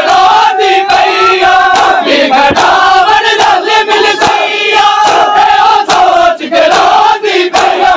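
A crowd of mourners chanting a Muharram noha in unison, with repeated slaps of hands beating on bare chests (matam) keeping time.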